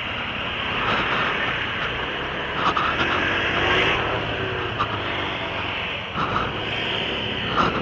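Yamaha NMAX scooter riding slowly in town traffic: its single-cylinder engine running steadily under a constant rush of wind and road noise on the camera microphone.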